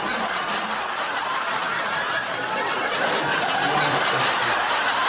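Many people laughing together at a steady level, the dense chuckling of a comedy laugh track.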